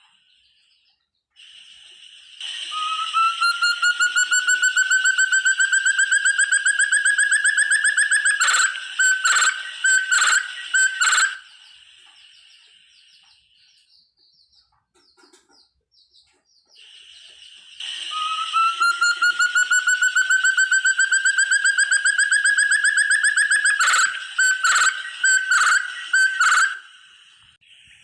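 Forest partridge (burung terung, an Arborophila hill partridge) calling twice. Each call is a long, fast train of whistled notes that rises steadily in pitch for several seconds, then breaks into about five louder, separate notes.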